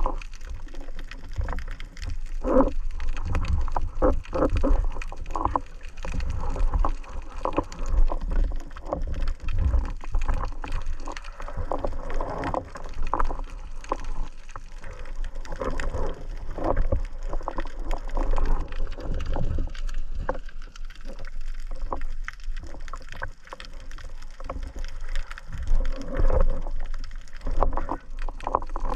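Water gurgling and sloshing around the camera, with irregular low rumbles and scattered knocks.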